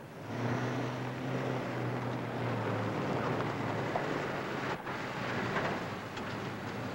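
Rushing wind of a swirling dust storm, with a low steady hum underneath for the first few seconds.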